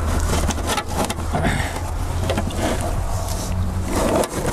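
Metal wrench clicking and scraping on a transmission cooler line fitting as it is worked loose, a few sharp clicks over a steady low hum.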